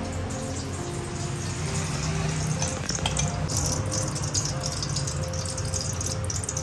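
Mustard oil heating in an aluminium pressure cooker, starting to sizzle with a crackly hiss that grows from about halfway in, while a metal spoon stirs it round the pot, over a steady low hum.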